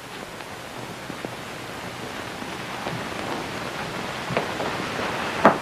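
Steady hiss of a 1940s film soundtrack between lines of dialogue, with a few faint knocks, the loudest near the end.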